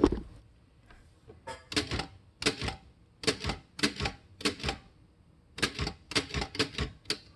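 Underwood Standard manual typewriter being typed on, one key at a time: its typebars strike the platen in a run of sharp clacks, about two a second, with a short pause partway through. Some keys are sticking, which the owner thinks calls for lubrication.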